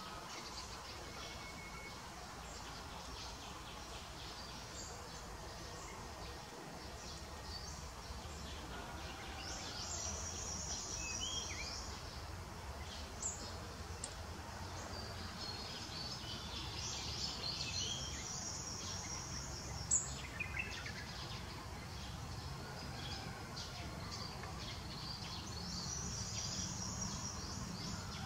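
Outdoor ambience of insects buzzing in a high band that swells in spells, with a few short falling chirps and a couple of sharp clicks.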